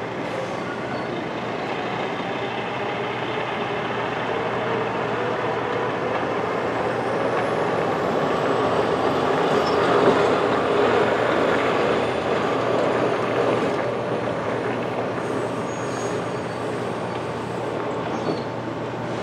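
Train running on the rails: a steady rumble that swells to its loudest about halfway through and then eases off, with a faint high whine rising about a third of the way in.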